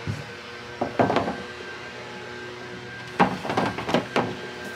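Knocks and thumps in two short flurries, one about a second in and another from about three seconds in, over a faint steady hum.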